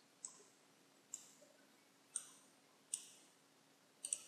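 Computer mouse buttons clicking faintly, about six clicks roughly a second apart, the last two in quick succession.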